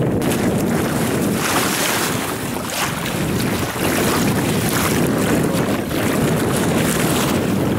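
Steady wind buffeting the microphone over choppy sea water splashing against a moving pedal kayak.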